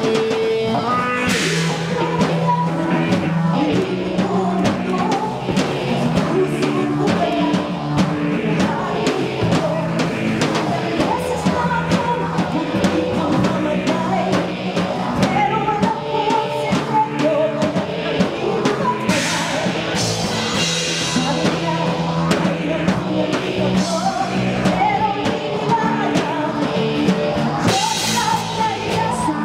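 A rock-style song with singing over a drum kit and a steady beat.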